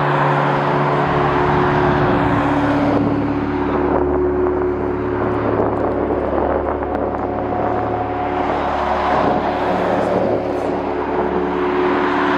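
Jet airliner engines running: a steady hum of several tones over a rushing noise, the tones shifting about two seconds in and again near ten seconds.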